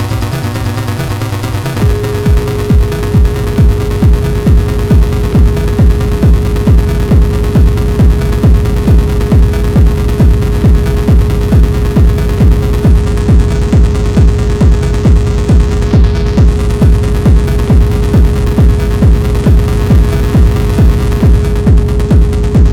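Industrial electronic music: a heavy kick drum beating about twice a second under a steady held tone, both coming in about two seconds in.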